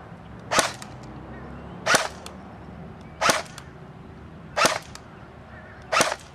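JG MK36 airsoft electric rifle powered by a 9.6 volt battery, firing five single semi-automatic shots about one every second and a half. Each shot is a short, sharp crack.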